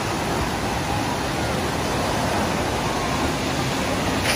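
Steady rush of water from a wave pool, waves washing up the shallow beach with waterfalls pouring behind, and a short click near the end.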